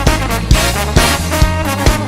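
Background music: upbeat swing-style tune with brass and a steady beat.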